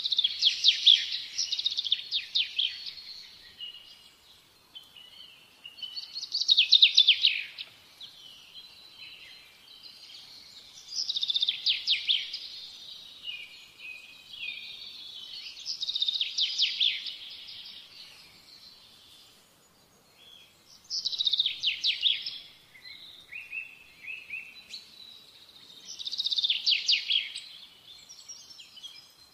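A songbird singing the same short, high-pitched phrase of rapid trilled notes over and over, about every five seconds, with fainter chirps in between.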